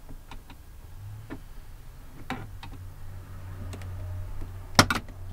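Plastic door trim on a Chevrolet Avalanche door being worked with a screwdriver: light scattered clicks and taps, then a couple of sharp snaps close together near the end as the panel's pop clips are pried.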